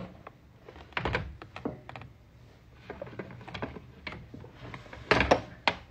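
Irregular light clicks and knocks of small makeup items being handled, with a louder cluster of knocks about a second in and again near the end.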